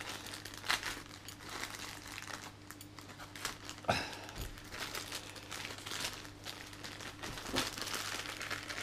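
Polythene mailing bag crinkling and rustling as it is cut open and the contents pulled out, with irregular crackles and a sharper click about four seconds in.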